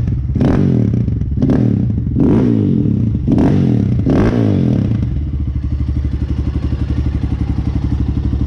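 Apollo Thunder 300 dirt bike's air-cooled 300cc engine in a rev test. It gives about five quick throttle blips in the first four seconds or so, then settles to a steady idle.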